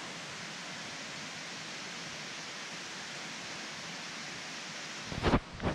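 Steady outdoor noise with no clear source, then two short loud thumps a little after five seconds in.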